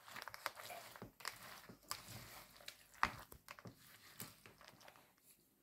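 Silicone spatula stirring grated raw potato in egg-and-flour batter in a plastic bowl: faint, irregular wet crunching strokes, with one sharper click about three seconds in.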